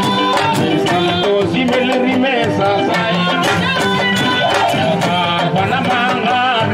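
Live traditional Serer music: a woman singing through a microphone with a wavering melody over a dense, steady beat of hand drums.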